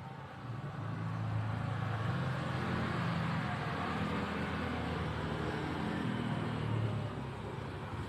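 A motor vehicle running, a low engine hum that swells during the first second or so and then holds steady.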